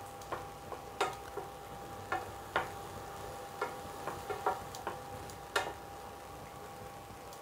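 A utensil clinking and scraping against a cooking pan while stirring soya chunks manchuria in its sauce: about a dozen irregular clinks over a low steady sizzle.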